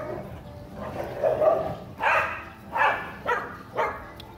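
Dogs barking: a couple of lower barks about a second in, then four sharp barks roughly half a second apart.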